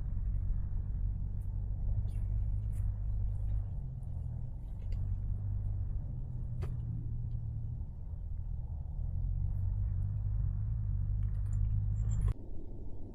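Steady low rumble with a few faint clicks, cutting off abruptly near the end.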